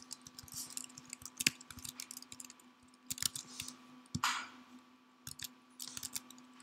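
Keystrokes on a computer keyboard: irregular clicks as code is typed, with a brief soft hiss about four seconds in over a faint steady hum.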